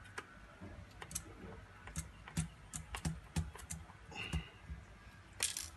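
Screwdriver backing out one of the small screws that hold a laptop's LCD panel, with light, irregular clicks, about two a second and a quick cluster near the end.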